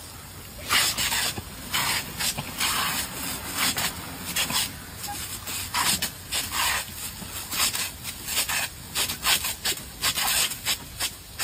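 Water jetting from an arena sprinkler and splashing as dogs bite and lap at the spray, in irregular hissing bursts about once or twice a second.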